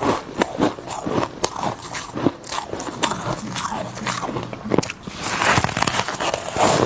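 Biting and chewing crunches of refrozen freezer frost: many quick, crisp crackles, thickest about five seconds in.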